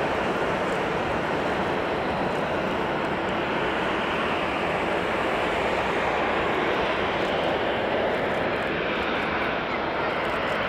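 Boeing 737-800 BBJ2's CFM56-7B turbofan engines at landing approach thrust: a steady jet rush as the airliner passes low over the runway and touches down.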